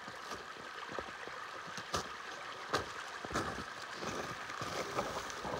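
A small stream trickling steadily through a snowy channel, with a few sharp clicks about two and three seconds in.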